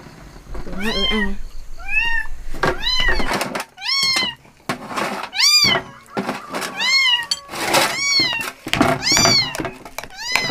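Cat meowing over and over, about one call a second, each meow rising and then falling in pitch.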